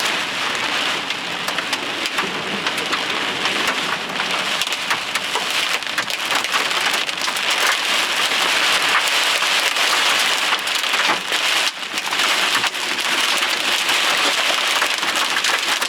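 Heavy rain pelting a vehicle in a downpour, a dense steady patter of countless small drop impacts.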